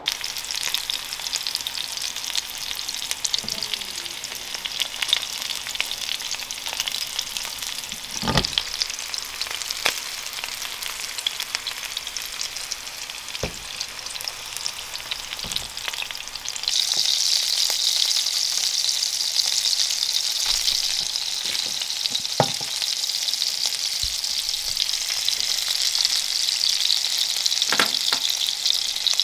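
Rib eye steak sizzling in hot oil in a nonstick frying pan, a steady crackling hiss that grows louder a little past halfway through. A few single knocks sound now and then.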